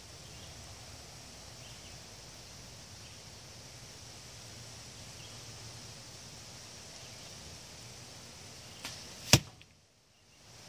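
A carbon arrow striking the block target about nine seconds in, one loud sharp smack, with a fainter click about half a second before it. Otherwise a steady faint outdoor hiss.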